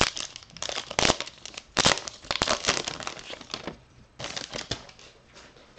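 Trading-card pack wrapper being torn open and crinkled by hand: a run of sharp, irregular crackles and rustles, easing off after about four seconds with a last short flurry.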